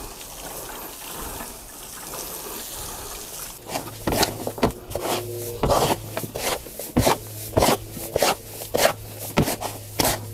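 Water poured onto a dry potting mix of soil, rice husks and cow manure in a plastic tub for about three and a half seconds, adding more water because the mix is still too dry. Then a small shovel scrapes and turns the damp mix against the tub, a bit under two strokes a second.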